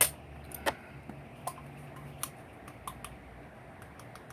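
Irregular small, sharp clicks and taps from hands handling small objects. The first click is the loudest, and a faint steady low hum fades out about two seconds in.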